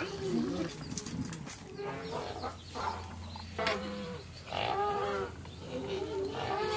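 Goats bleating, about five short calls a second or so apart, with a few light metal clinks from a ladle on steel pots and plates.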